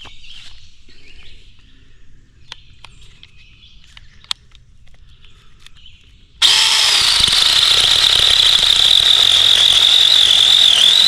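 Battery-powered RLSOO mini chainsaw with a 6-inch bar, switched on suddenly about six seconds in after a few faint handling clicks. It runs with a loud, steady high whine while cutting through a cedar limb, the pitch dipping briefly near the end.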